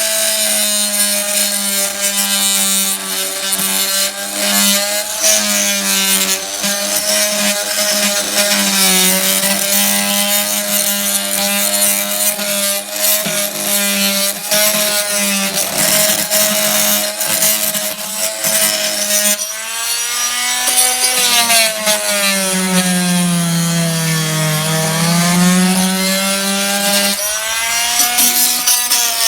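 Oscillating multi-tool with a wood-cutting blade running and cutting out old hardened putty from a wooden sash window: a steady motor buzz with a gritty scraping of the blade in the putty. Its pitch sags for several seconds past the middle, then comes back up.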